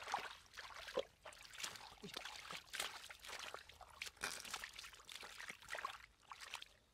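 Water splashing, pouring and trickling in quick, irregular bursts, as shallow muddy water is worked.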